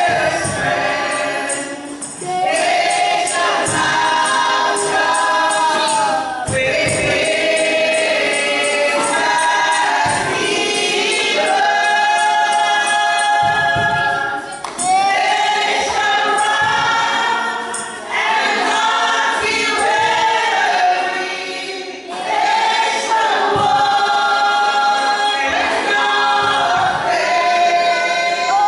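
A small group of women singing a gospel song in harmony through microphones, with a hand tambourine shaken and struck along to the beat. The phrases are long held notes with short breaks between them.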